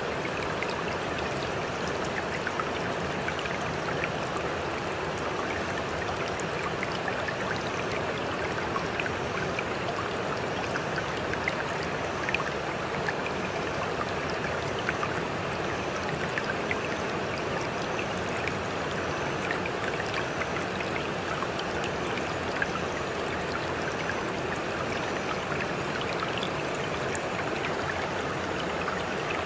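Steady sound of running water, like a stream, with small droplet-like ticks scattered through it.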